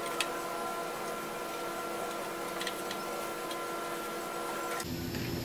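Steady workshop hum with a few light clicks of hand tools on the vine trimmer's metal frame. Near the end the hum cuts off abruptly and a low rumble takes its place.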